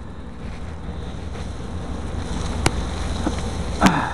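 Wind buffeting the microphone, a low steady noise, with two sharp clicks, the second near the end.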